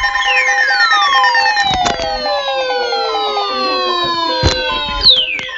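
Electronic siren and alert tones layered together: several siren tones slide slowly downward in pitch and overlap, over steady pulsing beeps, with sharp clicks cutting through, the loudest about five seconds in.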